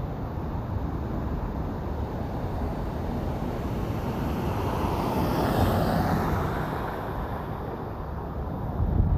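Road traffic noise: a steady rumble of tyres and engines, with one vehicle passing by, its noise swelling to a peak about five to six seconds in and fading away. A heavier low rumble rises near the end.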